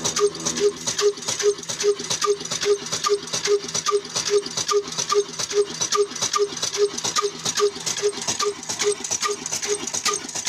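Old 22 hp Ruston Hornsby-type black diesel engine running at a steady speed, with a quick, even knocking beat of its firing strokes. It is driving a flour mill.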